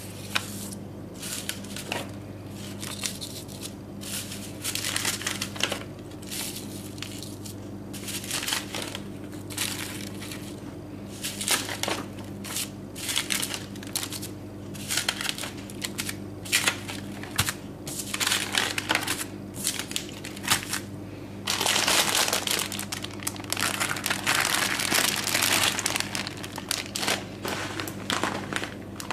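Irregular crinkling and crunching handling noises that grow denser and louder about three-quarters of the way in, over a steady low hum.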